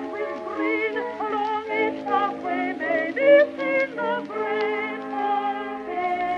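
Music: a wavering, vibrato melody line over sustained chords.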